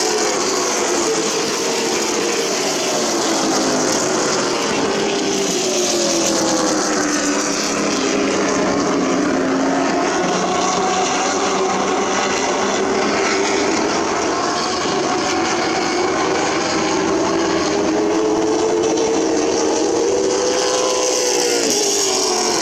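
Late model stock cars racing on a short oval: engines running hard in a continuous pack, their notes falling and rising again as the cars go down the straights and through the turns.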